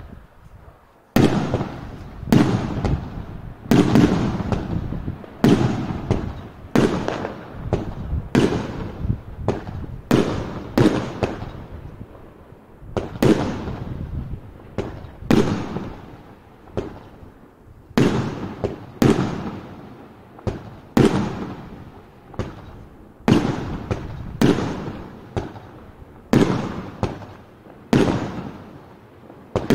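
Colosso Triple-Gold firework cake from Funke Sweden firing shot after shot, big bangs at a steady pace of roughly one a second. It starts about a second in and keeps going.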